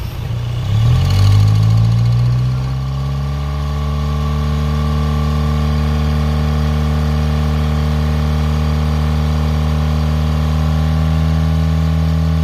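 Kia Carens CRDi diesel engine given a brief rev about a second in, then idling steadily, with its injector sealing washer freshly replaced.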